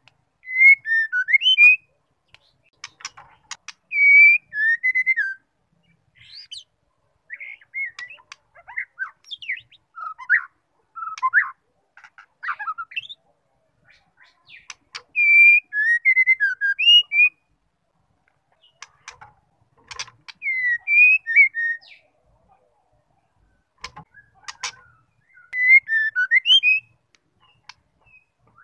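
Female white-rumped shama calling: short phrases of a few quick whistled notes sliding up and down, about eight in all, a few seconds apart, with sharp clicks between them.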